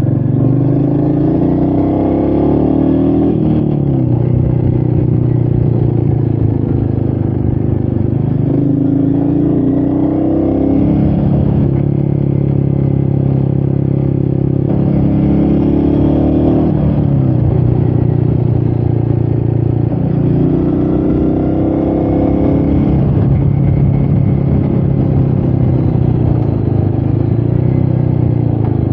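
Royal Enfield Meteor 350's single-cylinder engine running under load on a climb, its pitch rising and then dropping back several times as the throttle and revs change.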